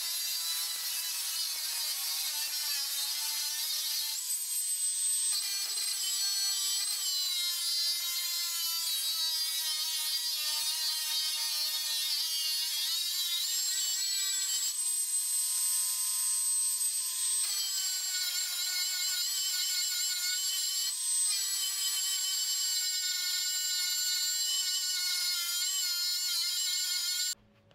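Angle grinder cutting into metal held in a vise: a high-pitched motor whine over a steady grinding hiss, the pitch shifting a little now and then as the disc bites. It cuts off suddenly just before the end.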